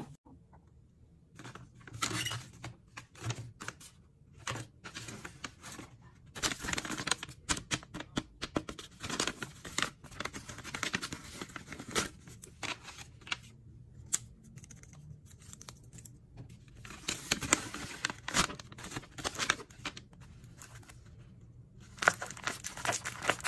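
Handmade paper blind bags, some wrapped in clear tape, crinkling and rustling as they are handled, in irregular bursts with short pauses.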